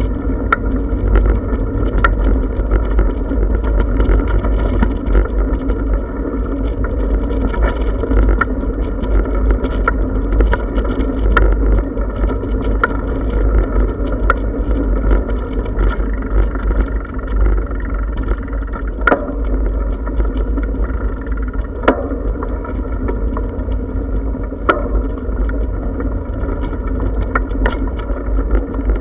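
Bicycle rolling over brick paving: a steady low rumble of tyres and wind on the microphone, with occasional sharp clicks and rattles from bumps in the paving.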